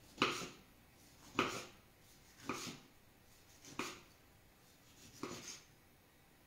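A knife cutting through a peeled orange onto a wooden cutting board: five slicing strokes, about one every 1.2 seconds.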